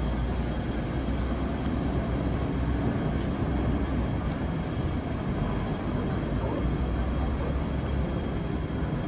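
Hong Kong double-decker tram running along its rails: a steady low rumble.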